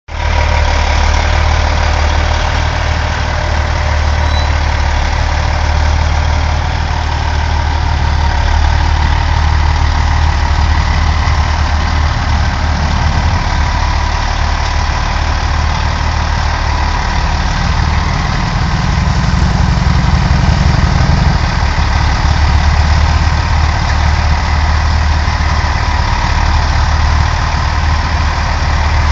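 Semi tractor's diesel engine idling with a steady low rumble. For a few seconds past the middle a slightly higher note joins in, then it settles back.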